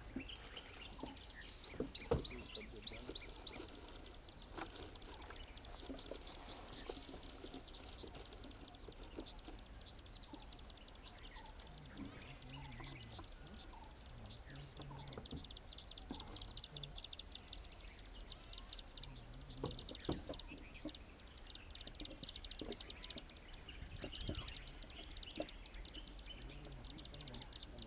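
Outdoor grassland ambience: many short bird chirps and calls over a steady high-pitched drone, with a few sharp snaps, the loudest about two seconds in and again near twenty seconds.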